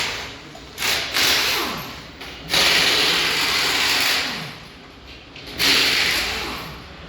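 Compressed air hissing in four bursts of uneven length, the longest nearly two seconds, during a motorcycle tyre change.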